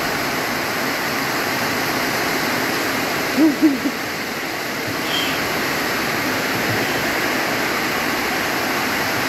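Heavy rain pouring down in a steady, even rush. About three and a half seconds in, a brief wavering pitched sound of a few quick notes rises above the rain.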